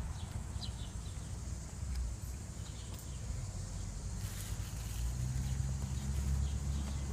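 Outdoor background sound: a low rumble that grows louder in the second half, under a steady high hiss and a few faint short chirps.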